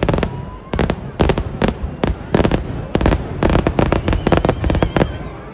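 Festival fireworks: volleys of loud firecracker bangs going off in rapid, irregular succession, thinning out near the end.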